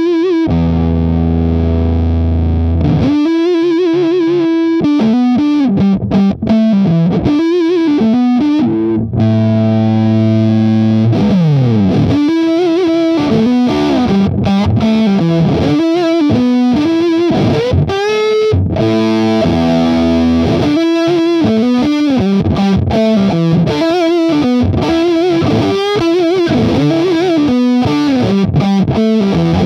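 Electric guitar played through a Caline CP-504 M-Fuzz classic fuzz pedal, giving a big, thick fuzz tone. Held chords alternate with single-note lead lines that have string bends and vibrato, with a downward slide about eleven seconds in.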